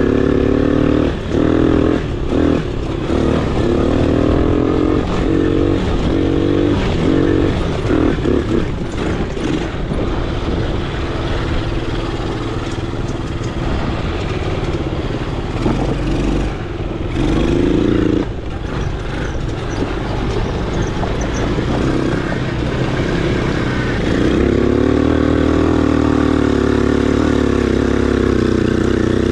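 Four-wheeler (ATV) engine running under way, its note rising and falling with the throttle as it revs up several times. Scattered knocks and rattles from the machine are heard in the first part.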